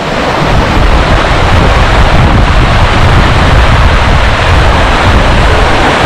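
Waterfall and its rocky stream rushing loudly in a steady roar of water, with a low rumble buffeting the microphone; it swells a little in the first second.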